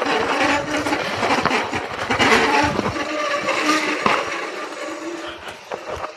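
Specialized Kenevo electric mountain bike clattering down a rough dirt trail: tyres crunching over dirt, roots and rocks, with many quick knocks and rattles from the bike.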